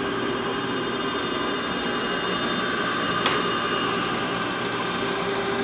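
Brown & Sharpe Valu-Master 814U cylindrical grinder running with its grinding wheel and work head under power: a steady motor hum with a constant whine. There is a single sharp click about three seconds in.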